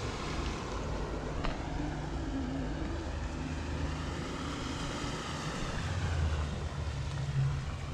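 A steady distant engine drone with a hiss that slowly sweeps up and down, and one faint tick about a second and a half in.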